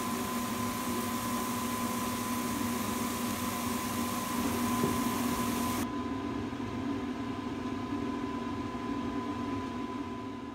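Steady hum of an electric fan motor with a thin, high held whine over a hiss. The hiss drops away about six seconds in and the hum fades out near the end.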